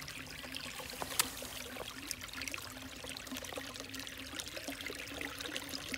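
Small spring-fed creek trickling, with many small splashy ticks and a steady low hum underneath.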